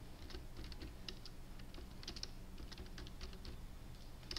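Typing on a computer keyboard: a run of quick, irregular key clicks as a short line of text is typed in.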